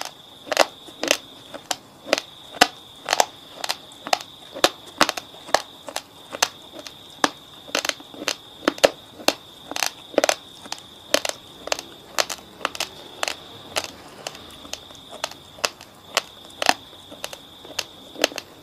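Raw basmati rice, chilled hard in the fridge, crunching between the teeth: sharp crunches about two a second in steady chewing.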